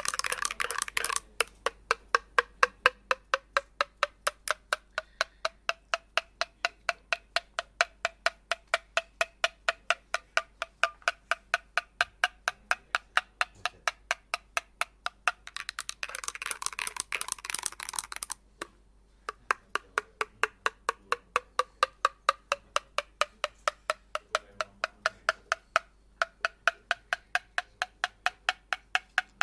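Dolce Gusto capsule coffee machine brewing, its pump clicking rapidly and evenly at about three to four clicks a second, each click carrying a slowly rising tone. A hiss comes in at the start and again about two-thirds through, and the clicking briefly stops twice.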